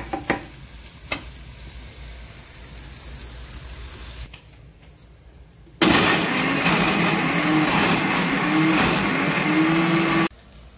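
A few clicks of a spoon against the jar, then a Kenwood mixer grinder runs for about four and a half seconds, grinding fried masala with cashews into a paste. Its motor whine wavers up and down as it churns the thick mixture, and it cuts off suddenly.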